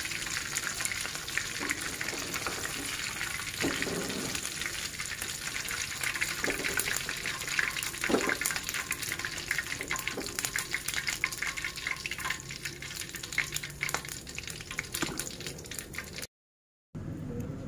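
Hot oil in a wok crackling and sizzling around batter-coated shrimp as they fry, with a few short scrapes and knocks of a metal spatula against the wok as the shrimp are lifted out. The sound cuts off abruptly near the end.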